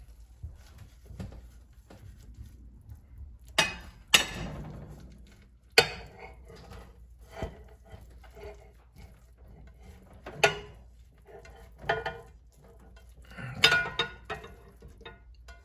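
Slotted spatula and skillet clinking and scraping against a ceramic plate as an omelet is slid out of the pan onto it: several sharp, separate clinks and clatters, the loudest about 4 and 6 seconds in.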